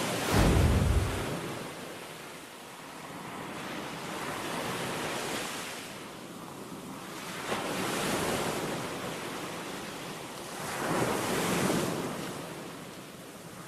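Sea waves surging and wind blowing across the microphone, swelling and easing every three or four seconds. About half a second in there is a heavy low rumble of wind on the microphone.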